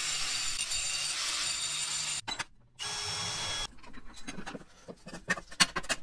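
A power tool cutting or grinding the end of a steel motorcycle axle: a steady abrasive hiss that cuts off about two seconds in, returns briefly for about a second, then gives way to light scraping and clicking as the part is handled.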